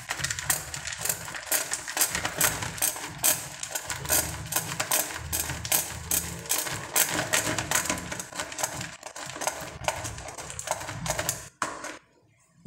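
A bar of soap being grated on a handheld grater: quick, repeated scraping strokes, several a second, that stop shortly before the end.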